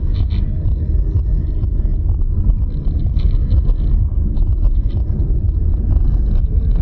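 Steady low rumble of road and engine noise inside a moving car, recorded by the dashcam, with faint light ticks and rattles over it.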